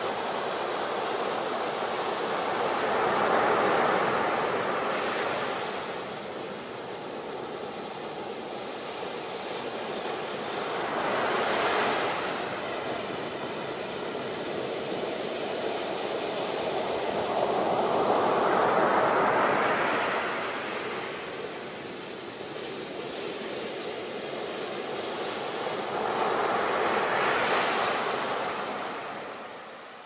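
Ocean surf breaking on a beach: a steady wash of noise that swells four times, about every eight seconds, as each wave breaks.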